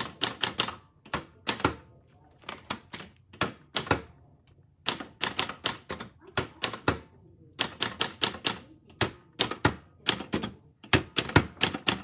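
Olympia portable manual typewriter being typed on: quick runs of sharp key strikes, a word's worth at a time, with short pauses between.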